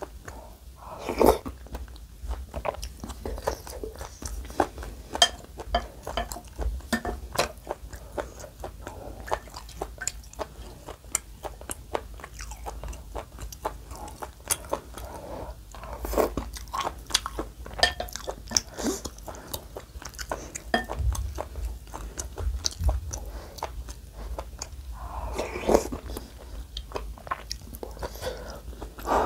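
Close-miked chewing and wet mouth clicks of someone eating rice cake dumpling soup from a wooden spoon, with a few louder bites and mouthfuls about a second in and near the end.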